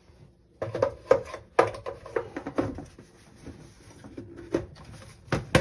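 A run of irregular clicks and light knocks: plastic parts being handled and snapped together as the Clack softener control head's cover is fitted back on.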